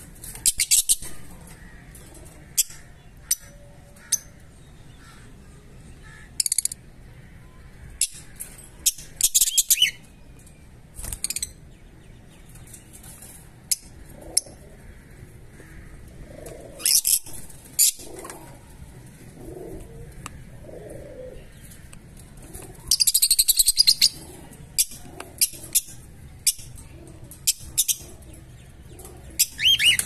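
Fischer's lovebirds giving short, sharp, high-pitched chirps at irregular intervals, with a longer burst of chirping about two-thirds of the way through.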